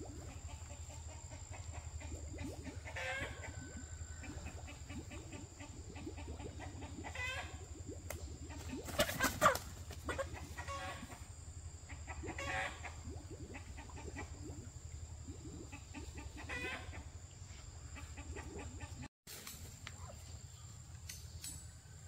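Chickens clucking: a handful of separate short calls, the loudest about nine seconds in, over a steady low hum.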